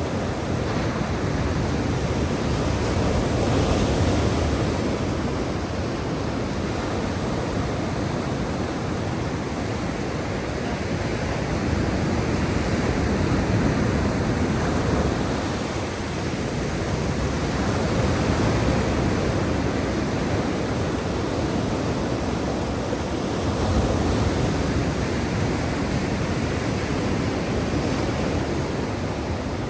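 Black Sea waves washing ashore in a steady rush, swelling and easing every few seconds.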